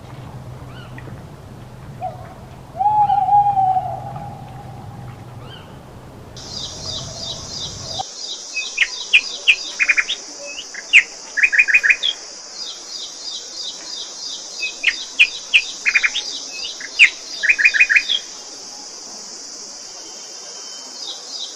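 An owl hoots a few times, with short gliding calls, the loudest about 3 seconds in. About 8 seconds in the sound changes to small birds chirping in quick trills over a steady high-pitched hiss.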